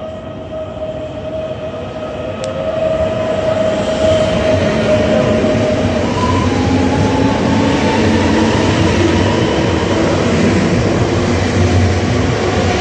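Electric multiple-unit passenger train running alongside a station platform: a steady rush of wheels on rail with the whine of its traction motors. It grows louder about three seconds in as the train comes close and then holds.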